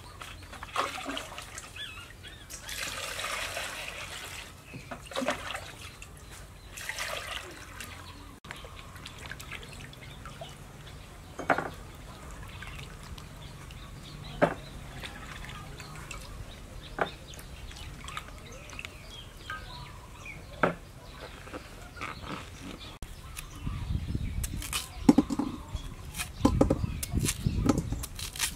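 Peeled purple-fleshed potatoes being washed by hand in water in a stainless steel bowl: splashing and rubbing, then single knocks against the bowl every few seconds. Near the end, a run of thuds and clicks as a potato is cut with a cleaver over the bowl.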